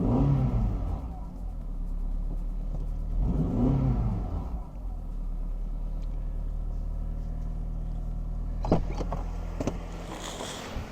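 2005 Honda CR-V's 2.4-litre four-cylinder engine revved up and back down twice, then idling steadily. Two sharp clicks come near the end.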